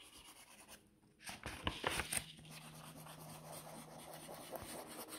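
A lump of natural clay rubbed back and forth on sketchbook paper, crumbling as it goes: a few knocks about a second in, then a steady dry scratching in quick strokes.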